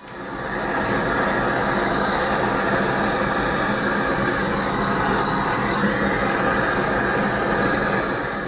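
Gas blowtorch flame burning with a loud, steady rushing noise that comes up at the start and cuts off at the end. It is played on a freshly thrown clay bowl on the potter's wheel to firm up the wet clay.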